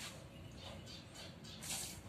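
Cat eating wet cat food from a plastic bowl: a run of short chewing and licking smacks, about three a second, with a louder one near the end.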